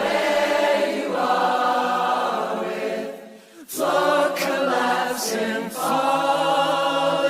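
Choral music: a choir singing long held chords, breaking off briefly about three and a half seconds in before the voices come back in.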